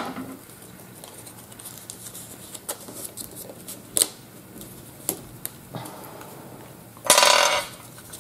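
Paper and card handled by hand: light taps and clicks as a die-cut paper band is fitted around a paper-wrapped gift box, with a short burst of rustling about seven seconds in, the loudest sound.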